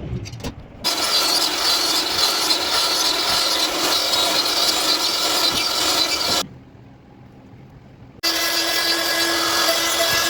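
A power tool working wood: a loud, even run that cuts off about six seconds in and starts again abruptly after about two seconds, the second run carrying a steady hum.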